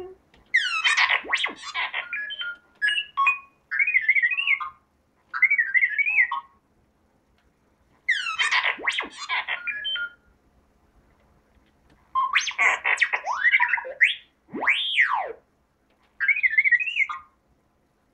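R2-D2 droid sound effects (beeps, chirps and warbling whistles) played from an SD card by an MP3 trigger board through a small amplifier and loudspeaker. They come as about half a dozen separate bursts with short silences between them, including one long whistle that rises and then falls near the end.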